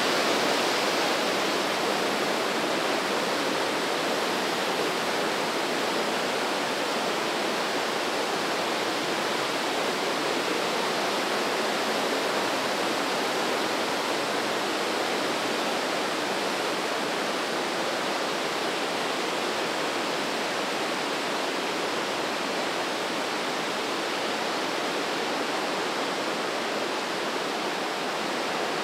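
The Breitach, a mountain river, rushing through the gorge in a steady roar of white water, a little louder at the start and easing off slightly.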